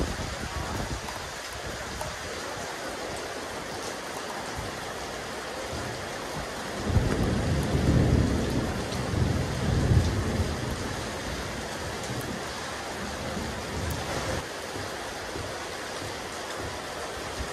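Steady rain falling on a rooftop terrace. About seven seconds in, a louder low rumble swells for some three seconds, then fades back into the rain.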